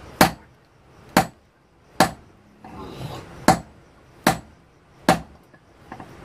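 Six sharp blows, in two runs of three about a second apart with a short pause between the runs.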